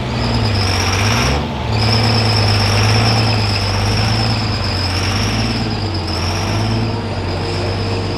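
Modified diesel pulling truck's engine running steadily, with a loud high-pitched turbo whistle over it. The engine note and whistle dip briefly and recover about a second and a half in.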